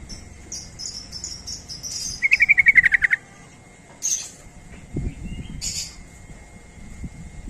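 Yellow-vented bulbul (trucuk) singing: thin high chirps, then about two seconds in a loud, rapid trill of about ten notes lasting about a second, followed by a few short high chirps.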